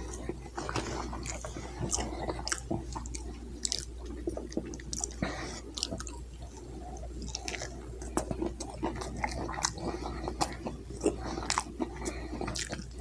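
A person chewing food close to the microphone, with many small irregular wet clicks and crunches, over a steady low hum.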